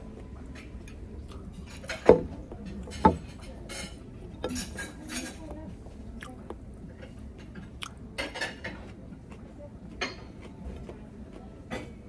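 Metal fork clinking and scraping on a ceramic plate while eating. Two sharp clinks, about a second apart, around two and three seconds in are the loudest, with lighter taps and scrapes scattered through the rest.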